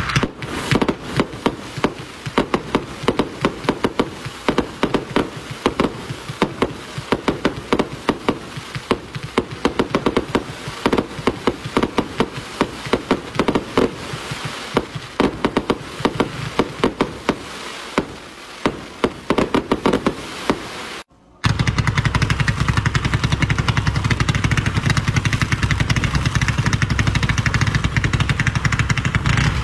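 Consumer fireworks cakes firing: a long string of rapid launch thumps and bursting shots. After a brief break, a second cake fires its shots in very quick succession as a dense, continuous rattle.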